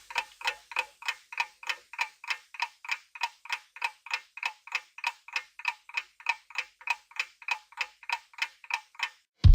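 Steady clock-ticking sound effect of a quiz countdown timer, about three to four ticks a second. It stops near the end, just as a loud musical tone begins.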